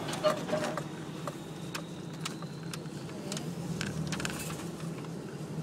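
Suzuki Celerio's engine and road noise heard from inside the cabin: a steady low hum, with scattered sharp clicks and rattles throughout.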